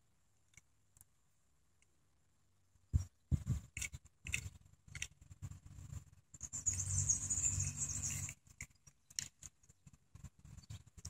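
Handling noise as a small die-cast toy car is turned over in the hand: scattered light clicks and rubbing, with a denser stretch of rustling about six to eight seconds in.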